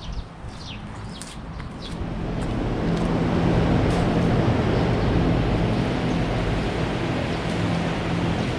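Harley-Davidson Shovelhead FLH engine running under wind rush while riding, swelling over the first few seconds and then holding a steady drone.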